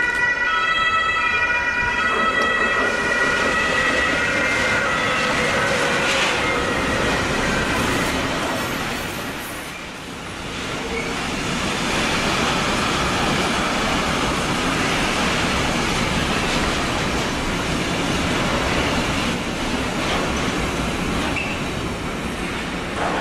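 Class 186 electric locomotive sounds a multi-tone horn for about two and a half seconds, then a loaded intermodal container freight train runs through the station, its wheels and container wagons making a steady rolling clatter that dips briefly about ten seconds in.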